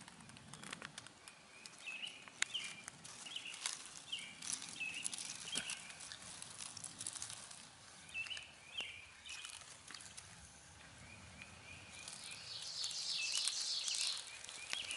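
Outdoor woodland ambience: a bird gives short chirping notes, repeated at irregular intervals, with scattered light clicks. A hissing rustle grows louder near the end.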